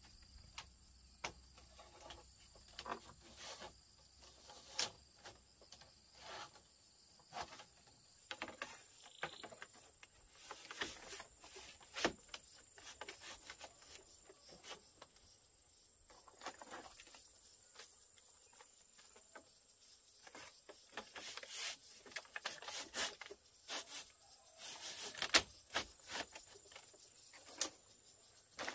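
Split bamboo strips clicking, knocking and rubbing against each other and the bamboo rails as they are woven into a wall panel, in irregular bursts that grow busier and louder later on. Insects keep up a steady high trill.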